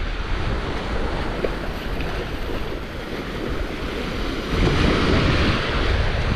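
Ocean surf washing onto a beach, with wind buffeting the microphone; the surf swells louder about four and a half seconds in.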